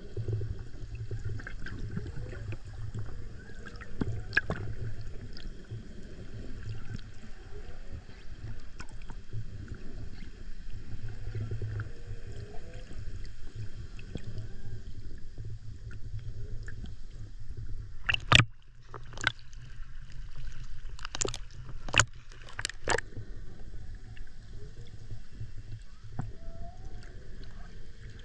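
Underwater recording: a steady low water rumble with faint, gliding humpback whale song calls, broken about two-thirds of the way through by a handful of sharp clicks.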